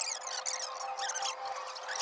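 High-pitched chirping from many small birds, rapid and overlapping, over a steady hum.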